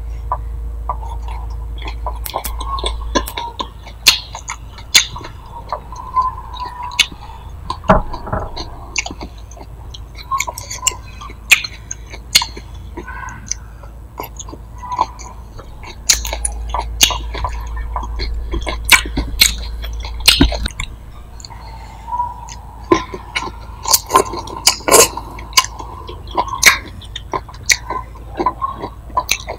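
Close-miked chewing of grilled beef and pork, with many short, sharp mouth clicks and smacks all through. A low hum comes in at the start and again about halfway through.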